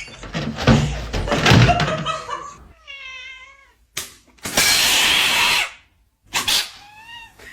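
A house cat meowing twice: one wavering meow about three seconds in and a shorter, falling one near the end. Before them come knocks and clatter, and in the middle a loud hissing noise lasting about a second.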